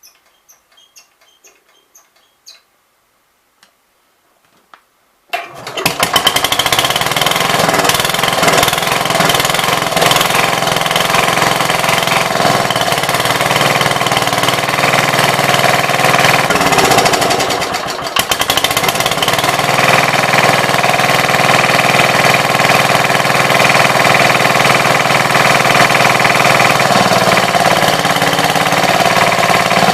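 A few faint clicks, then about five seconds in the 1966 Gravely C10's engine fires on choke and runs loudly and steadily, its note dipping briefly partway through. It is starting on the newly fitted battery ignition coil, so the no-spark fault is cured.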